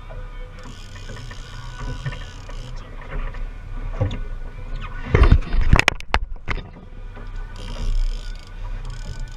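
Boat's engine running steadily under a haze of wind and water noise, with a cluster of loud, sharp knocks about five to six and a half seconds in.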